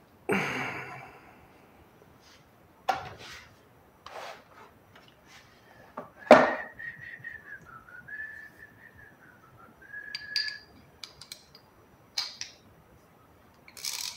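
Steel sockets and a ratchet from a socket set clinking and knocking as they are handled, with the loudest knock about six seconds in. Right after it someone whistles a wavering tone for about four seconds.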